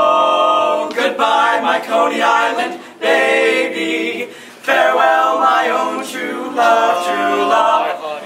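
Barbershop quartet of young male voices singing a cappella in close harmony, holding chords in short phrases with brief breaks between them.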